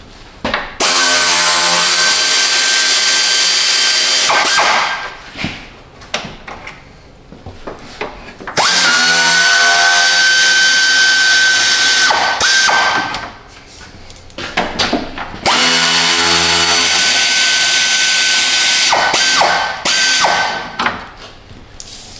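A cordless power tool, such as a drill or driver, runs three times for about three and a half seconds each at a steady high whine, driving out the fasteners at the truck's grille and bumper. The second run winds up in pitch as it starts, and small clicks and handling noises come between the runs.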